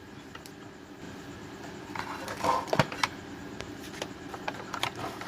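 Light clicks and taps from handling a phone and its charger cable on a workbench, over a faint steady hum, with a slightly louder knock about two and a half seconds in.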